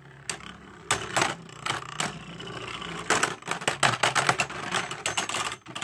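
Two Beyblade Burst spinning tops clacking against each other again and again in a plastic stadium, in quick irregular hits over a faint spinning whir.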